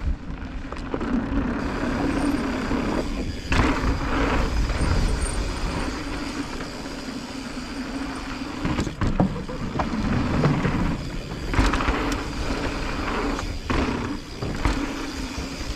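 Electric mountain bike riding down a dirt trail: wind and tyre noise with a steady hum, broken by several sharp knocks and rattles as the bike hits bumps and features.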